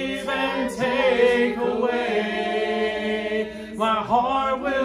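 Several voices singing a worship song a cappella in harmony, with no instruments, holding and moving between sung notes.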